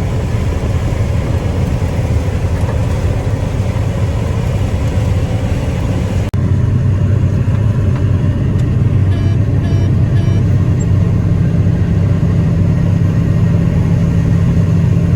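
Heavy farm harvest machinery engine running steadily. About six seconds in, the sound drops out for an instant, then carries on as a steadier, deeper hum. A few short high beeps come a little after the middle.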